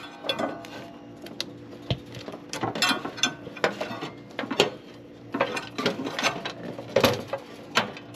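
Irregular metallic clicks, clinks and knocks of hand tools and hardware being handled while working on a battery cable and starter solenoid, over a faint steady hum.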